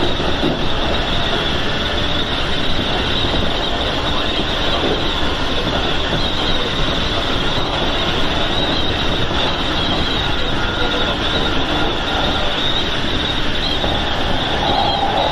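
Keikyu 1000-series electric train running at speed, heard from inside the leading car: a steady rumble of wheels on rails with a thin high squeal throughout. About 14 seconds in, a steadier mid-pitched hum joins in.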